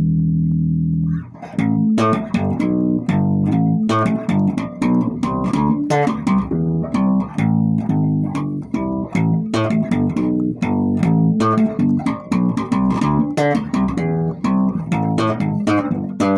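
Electric bass guitar played solo: a held low note, then, from about a second in, a busy run of quick plucked notes with sharp, clicky attacks.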